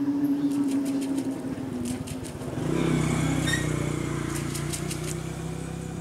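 An engine running steadily. Its note drops to a lower, fuller hum about two and a half seconds in and then slowly fades, with scattered light clicks over it.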